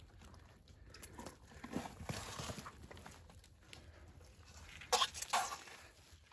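Hands pushing a deer's guts out of its opened body cavity on dry leaf litter: soft, scattered handling and rustling sounds, with two short, sharper crackles about five seconds in.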